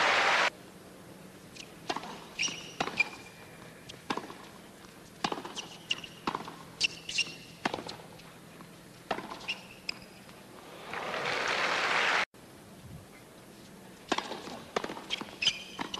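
Tennis rally on a hard court: racket strikes on the ball about once a second, with sneaker squeaks in between. Crowd applause swells about eleven seconds in and cuts off abruptly, and a new rally of strikes and squeaks starts near the end.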